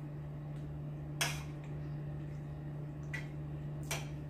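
Spoon and fork clicking against a plate while eating: a few sharp clicks, the loudest about a second in and two more near the end, over a steady low hum.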